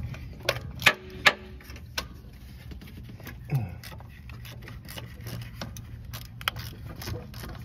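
Ratchet wrench clicking and metal tools knocking while the A/C line bolt on the compressor is worked loose. A few sharp knocks come in the first two seconds, then a run of fainter quick clicks, over a steady low hum.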